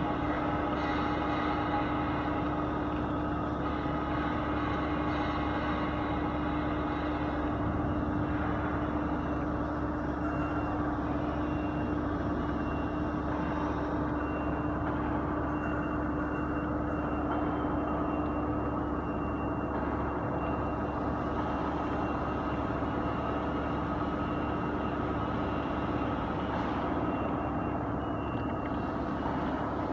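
Large boring machine running steadily, its spindle-mounted cutter with APKT carbide inserts machining the bore of a thick steel sleeve under flowing coolant. It gives a continuous machine hum with a constant low tone.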